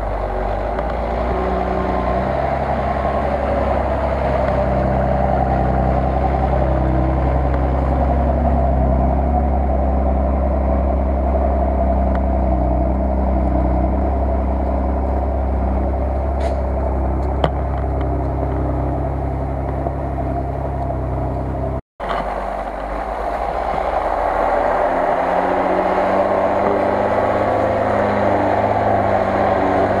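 Engine of a lifted Jeep Cherokee monster truck on huge tyres running steadily as it drives through snow. The sound drops out for an instant about two-thirds of the way through, then carries on.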